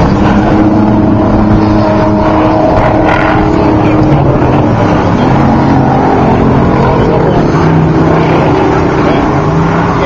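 Off-road race truck engines running hard in a loud steady drone, their pitch stepping lower about four seconds in.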